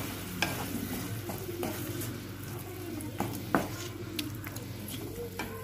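Mushrooms and masala sizzling in a non-stick kadai as freshly added curd is stirred in with a spatula. The spatula gives a few short scrapes and taps against the pan.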